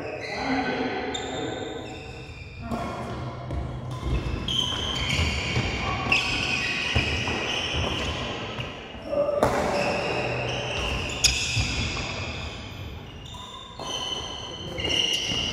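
Badminton rally sounds: sharp racket strikes on the shuttlecock a few seconds apart, with shoes squeaking on the court floor and players' voices in between.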